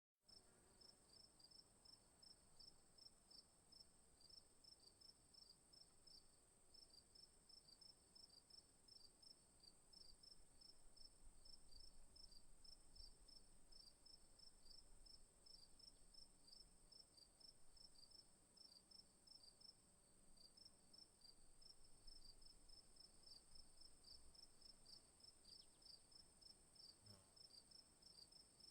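Faint crickets chirping: a continuous high trill with quick, evenly repeated chirps a little lower in pitch layered over it.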